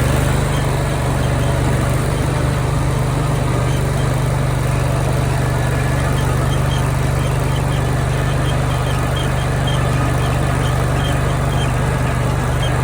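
Engine running steadily at an even, low pitch.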